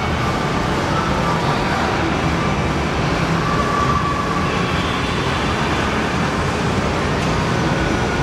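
Loud, steady din of an indoor amusement arcade, with rides and game machines blending into one wash of noise and faint electronic tones over it.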